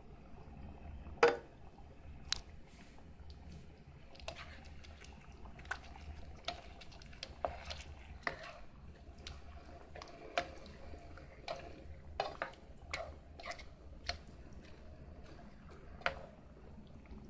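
A plastic spoon stirring a thin, coconut-milk curry sauce in an electric skillet: irregular taps and knocks of the spoon against the pan, the loudest about a second in, with wet sloshing of the sauce.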